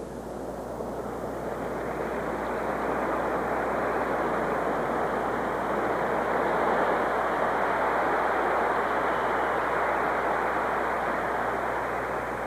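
Arena crowd applauding and cheering, swelling over several seconds and dying away near the end.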